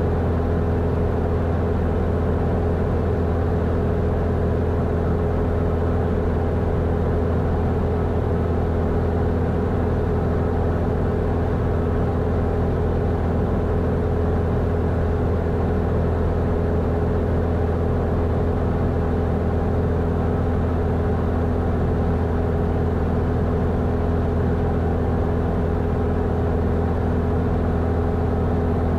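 Grumman AA-5 single-engine piston aircraft's engine and propeller droning steadily at constant cruise power.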